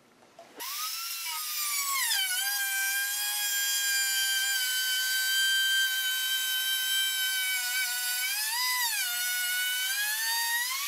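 Plunge router with a half-inch bit running and cutting a curved slot into a board: a high motor whine that starts about half a second in and sags in pitch as the bit takes the load. It rises briefly in pitch twice, a little before the end and again at the end.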